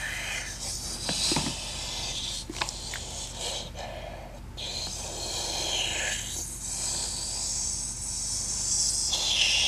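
Water splashing and swishing in a small plastic toy bathtub as hands rinse and rub a doll's wet hair, with an uneven hiss that rises and falls and a few small knocks.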